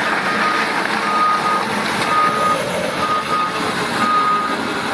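Backup alarm on heavy mining equipment beeping about once a second, each beep a single steady tone, over the loud, steady running noise of heavy machinery.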